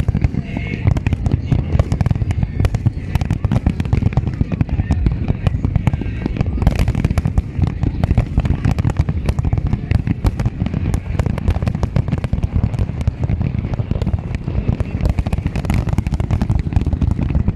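Fireworks display: a dense, continuous barrage of sharp bangs and pops, several every second, overlapping one another.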